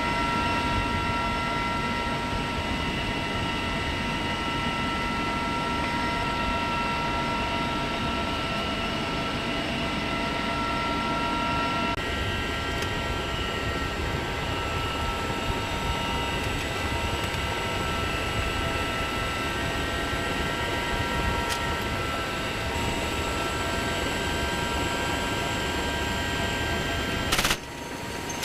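CH-53E Super Stallion helicopter running steadily, a constant turbine whine over rotor and engine noise. Near the end a brief, loud burst of machine-gun fire cuts in.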